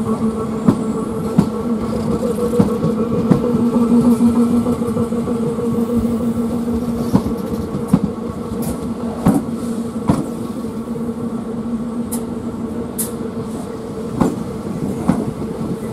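Class 442 'Wessex Electrics' electric multiple unit moving past at low speed, with a steady hum that swells about four seconds in. Its wheels click irregularly over the rail joints, with a few brief high squeaks near the end.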